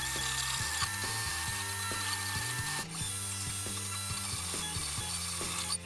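Creality Ender 3D printer printing: its stepper motors whir in steady tones that jump from pitch to pitch as the print head changes moves, over a steady fan hiss.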